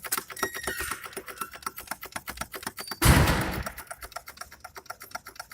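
A worn automatic-transmission mount on a Skoda Octavia A7 1.4 TSI gives one loud, heavy clank about three seconds in as the drivetrain is rocked. Under it runs a rapid, even ticking. The owner takes the clank for a faulty mount; the dealer calls it normal.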